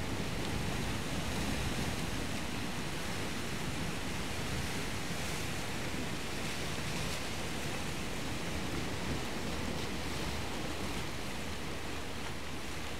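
Steady rushing wash of sea surf, an even noise with no distinct events.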